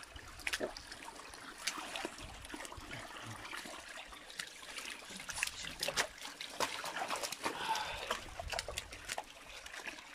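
A thin stream of water trickling out of a drain opening, with irregular wet slaps and splashes of stranded carp flopping in shallow water and mud.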